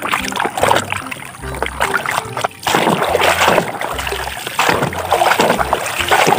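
Water splashing and sloshing in a tub as a plastic toy dump truck is swished and dunked by hand, in irregular surges.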